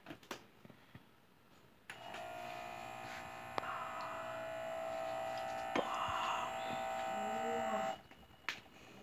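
Electric air pump of an automatic upper-arm blood pressure monitor inflating the arm cuff: a steady whirring hum that starts about two seconds in and cuts off suddenly near the end, with a couple of faint clicks while it runs.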